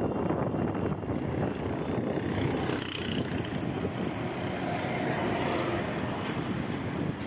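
Wind rushing over the microphone of a moving bicycle, with motor traffic running in the background.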